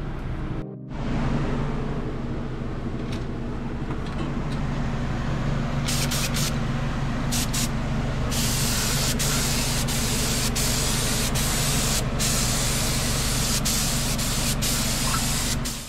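Gravity-feed spray gun hissing with compressed air: a few short bursts about six to seven seconds in, then a continuous spray from about eight seconds that cuts off near the end. A steady low hum runs underneath.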